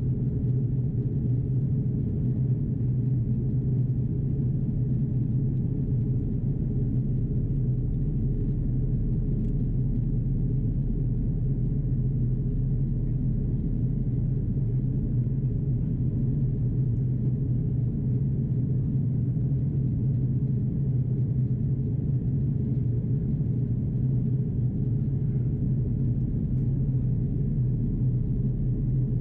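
Steady low cabin drone of an Airbus A330-343 in descent: the Rolls-Royce Trent 700 engines and airflow over the fuselage, an even rumble with a steady low hum.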